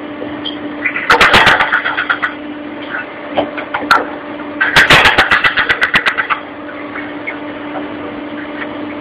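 EBZ75 boom-type roadheader cutting into the tunnel face: a steady machine hum, broken twice by loud spells of rapid knocking, several knocks a second, as the rotating cutting head's picks strike the rock. The first spell comes about a second in and the second around five seconds in.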